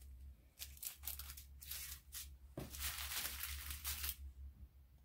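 Small clear plastic bags of diamond-painting drills crinkling as they are handled: a few short crackles, then a longer stretch of rustling about two and a half seconds in.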